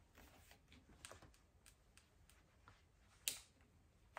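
Faint plastic clicks and fabric rustling as a microfibre pad is pushed onto the plastic head of a spray mop, with one sharper click about three seconds in.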